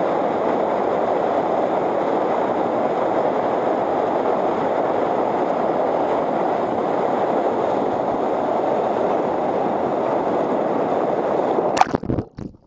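Steady rushing of whitewater pouring over a rocky waterfall. Near the end there is a sharp knock, then the rushing breaks up and drops away to a muffled near silence, as heard with the microphone plunged into the foaming water.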